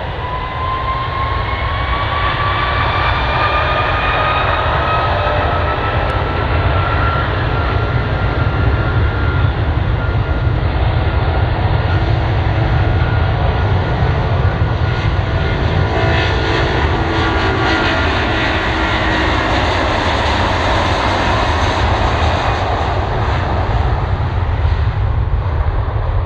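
Airbus A330-200's twin Rolls-Royce Trent 700 turbofans at takeoff power: a whine that rises in pitch over the first several seconds above a steady deep rumble, swelling in loudness and then staying loud.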